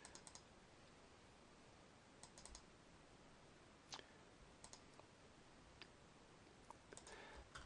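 Near silence with faint room hiss, broken by scattered computer mouse clicks, some in quick runs of three or four.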